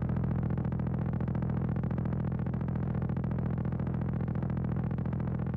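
Steady low electronic drone with a fast, even pulsing buzz, unchanging throughout.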